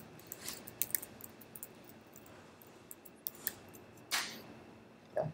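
Faint, scattered clicks of laptop keys being typed, with a short hiss about four seconds in.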